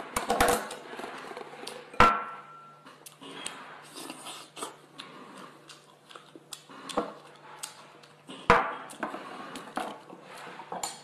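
Tableware being handled on a table: scattered clicks and knocks of a knife, bowl and scallop shell, with two louder knocks, the first about two seconds in with a brief ringing, the second about three-quarters of the way through.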